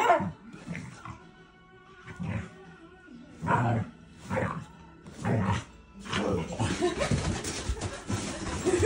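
A Shiba Inu making a series of short vocal sounds over background music. From about six seconds in, louder scuffling and rustling noise takes over.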